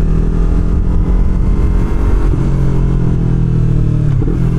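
Yamaha R3's parallel-twin engine through an aftermarket slip-on exhaust, running under way at low city speed. Its note breaks and changes pitch about two seconds in and again near the end.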